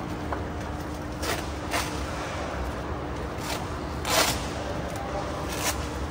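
Steady low hum of a busy indoor market hall, crossed by five short scraping swishes, the loudest a little after four seconds in.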